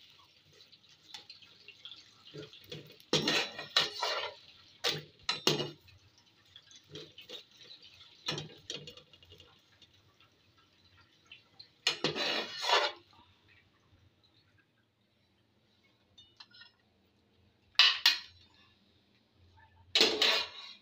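Kitchen utensils knocking and scraping against a frying pan and dishware in a handful of separate clattering bursts, over a faint sizzle from the pan that fades away.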